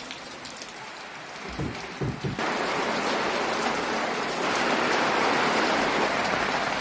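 Heavy rain falling and splashing on surfaces, a steady hiss that grows louder about two and a half seconds in. A few low thuds come just before.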